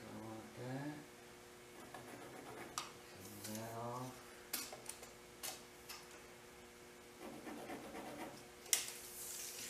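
Light clicks and taps of a steel tape measure and pencil on wooden boards as they are measured and marked, with a short rustle near the end. A few brief low hums from a man's voice come and go, over a faint steady hum.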